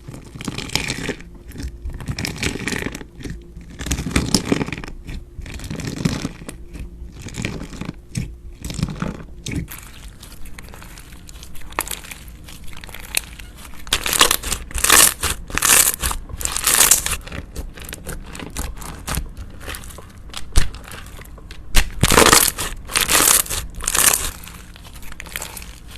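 Slime being handled by hand: squeezed, stretched and pressed, giving a run of irregular crinkling, crackling squelches, loudest in a few bursts past the middle and again near the end.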